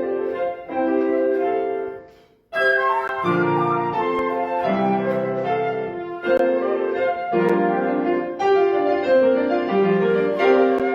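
Flute and piano playing a classical chamber piece. About two seconds in the music fades to a brief silence, then both instruments come back in abruptly.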